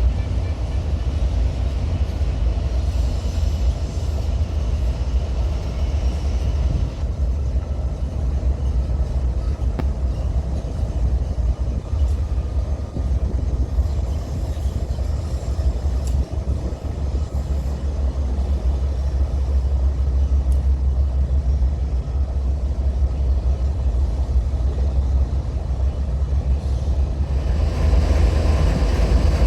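Freight train rumbling steadily, a little louder near the end.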